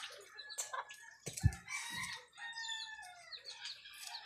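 Domestic fowl calling in the background: several short calls that glide and fall in pitch. About a second and a half in there is a single sharp knock.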